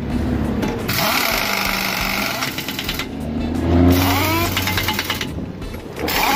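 Compressed air hissing in bursts of a second or two as a new semi-truck tyre is inflated, with a rattling pneumatic tool and an engine running underneath.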